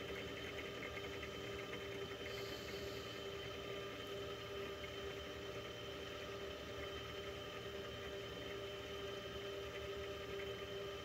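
Milling machine spindle motor running steadily with a constant whine while the cutter takes a light cut around a conrod's big end as the work is turned on a rotary table. A brief higher hiss comes about two seconds in.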